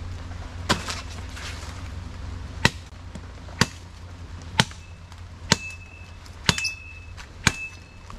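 Machete blade striking a woody stalk: seven sharp chops, the first two about two seconds apart, then about one a second.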